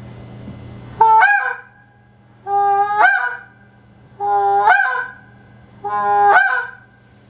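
Hand-held goose call blown by mouth, giving four honks about a second and a half apart: each a drawn-out moan that breaks over the reed into a higher, louder note at its end.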